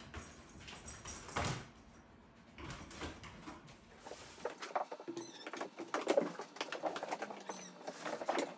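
Plastic bag rustling and crinkling with small clicks and scrapes as cat litter is bagged from a plastic litter tray, busier in the second half. A few faint, short high chirps come in over it from about halfway through.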